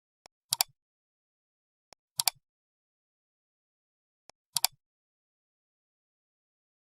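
Three sets of sharp clicks about 2.3 seconds apart, each a faint tick followed by a louder double click, with dead silence between them.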